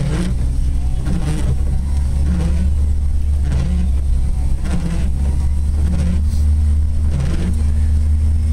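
1995 Jeep Wrangler YJ running under way, a loud steady low drone. A soft sound repeats about once a second over it, and a steadier engine tone comes in near the end.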